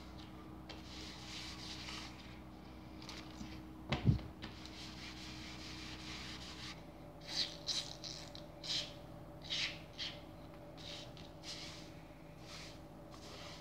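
Cloth wiping an LP's cardboard sleeve: a thump about four seconds in, then a run of short rubbing strokes about half a second apart, over a faint steady hum.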